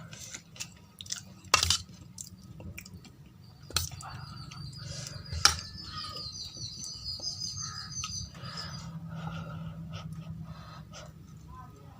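Eating sounds of poori with aloo curry: chewing with a few sharp smacks, the loudest about one and a half and five and a half seconds in. Behind them a bird chirps a rapid run of high notes from about three and a half to eight and a half seconds in.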